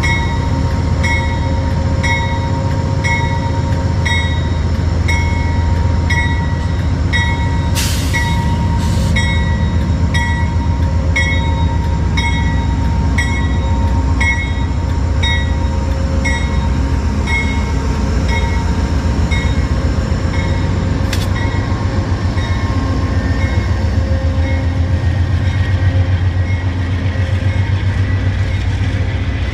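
Amtrak passenger train behind a GE P42DC diesel locomotive passing close by, with a low rumble of engine and wheels. A bell rings in steady, evenly spaced strokes and fades later on. A few sharp clicks come about eight, nine and twenty-one seconds in.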